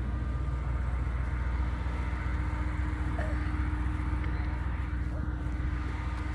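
Electric Mercedes-Benz G580 EQ driving off-road: a steady low rumble with a faint, even hum running through it.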